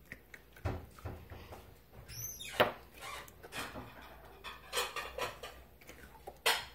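Clear slime being pressed and poked with fingers on a mat: scattered small sticky pops and clicks, with a sharper click about two and a half seconds in.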